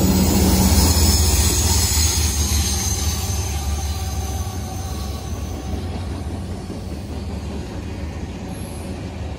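Freight trains passing at close range on two adjacent tracks: a steady low drone from CSX diesel locomotives, loudest about the first second and fading after, over the continuous rolling clatter of freight-car wheels on the rails.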